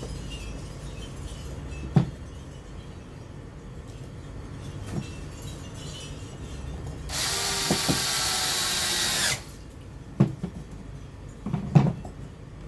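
Power screwdriver running for about two seconds, driving a bolt into the beadlock ring of a 1/5-scale RC car wheel. A few sharp knocks of parts and tools come before and after it.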